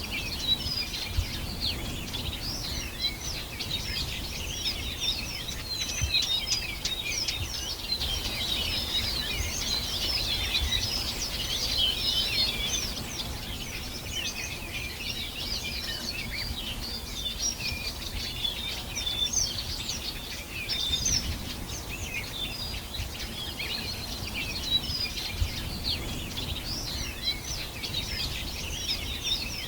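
Many songbirds chirping and singing at once in a dense, unbroken chorus of short high calls, over a low steady rumble.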